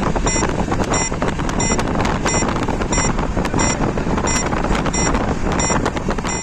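Passenger train running, a loud steady rush of wheel and wind noise, with a short high electronic beep repeating about one and a half times a second.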